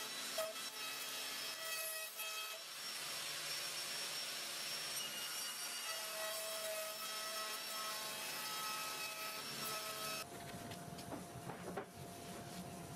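Handheld plunge router running and cutting into a timber door frame, a steady hiss with a high motor whine. About ten seconds in it cuts off abruptly, leaving a lower hum with a few light knocks of wooden boards being handled.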